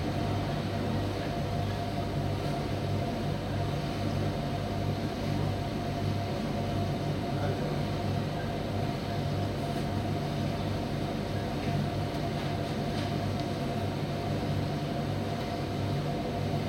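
Primus commercial tumble dryer running: a steady machine hum from the turning drum and fan, with a low drone and a fainter higher whine held constant throughout.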